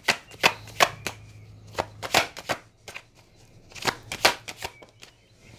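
A deck of cards being shuffled by hand: quick runs of sharp card slaps and flicks, coming in three short clusters with brief pauses between.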